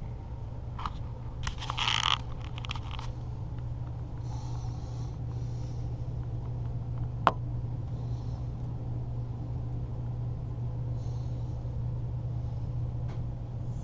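Wind blowing through a snowstorm: a steady low rumble with soft gusts of hiss now and then. A few clicks in the first few seconds and one sharp tick about seven seconds in.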